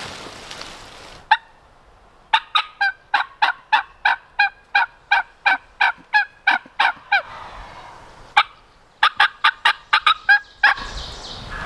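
Turkey yelping: a long, fast run of sharp, evenly spaced notes, about four a second, starting about two seconds in, then a shorter run near the end.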